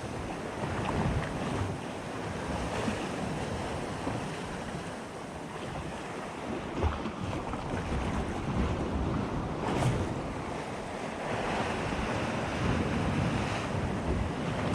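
Sea surf washing against coastal rocks, with wind buffeting the microphone in low gusts. A brief click about ten seconds in.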